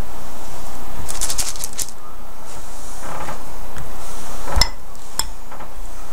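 Light clicks and scrapes of a utensil against a bowl while peanut butter balls are coated in melted chocolate: a quick run of small ticks about a second in, then a sharp click at about four and a half seconds and another shortly after.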